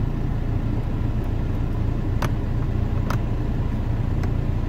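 Skoda Superb's 1.9 TDI four-cylinder diesel idling, a steady low rumble heard from inside the cabin. Two light clicks come about two and three seconds in.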